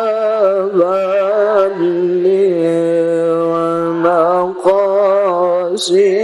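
A man chanting an Arabic prayer melodically, holding long notes with wavering, ornamented pitch and short breaks between phrases.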